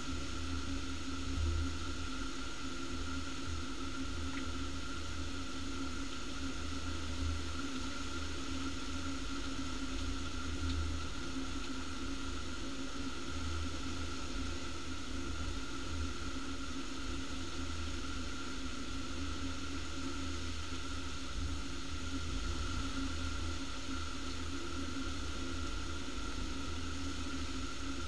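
Steady hiss of heavy storm rain, with wind gusting on the microphone as an uneven low rumble.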